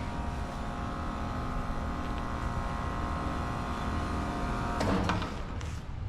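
An engine running steadily. About five seconds in there is a short clatter and its steady hum stops.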